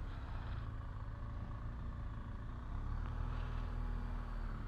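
BMW R1200GS boxer-twin engine idling steadily at low revs, slightly louder from about three seconds in.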